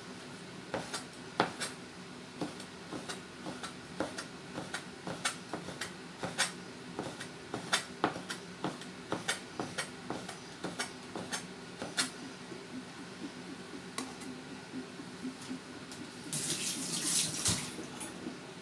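Chinese cleaver chopping fresh coconut meat into strips on a plastic cutting board: a run of knocks, about two a second, unevenly spaced. Near the end there is a short hissing rush lasting about a second and a half.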